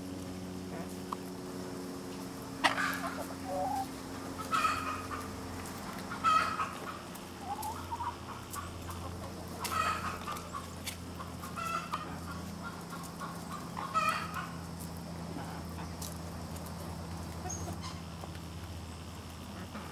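Chickens clucking in short calls every couple of seconds as they feed, the calls dying away in the last few seconds. A steady low hum runs underneath.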